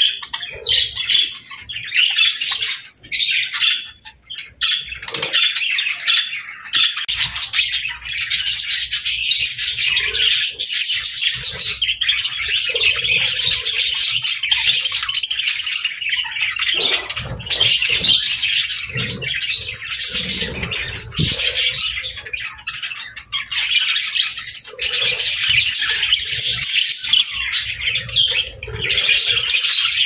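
Several budgerigars chattering continuously in high-pitched calls.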